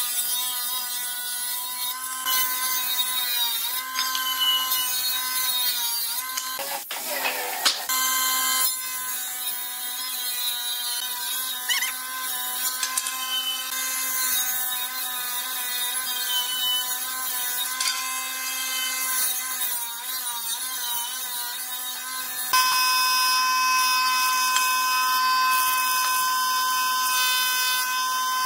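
Table saw running with a steady whine, its pitch dipping each time a wooden plank is pushed through the blade for a rip cut. About three-quarters of the way through it gives way to a thickness planer running with a louder, steadier whine as boards feed through.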